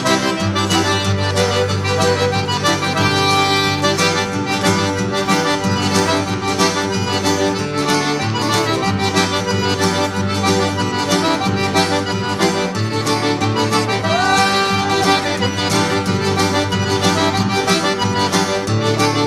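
Background instrumental music with sustained chords and a steady beat.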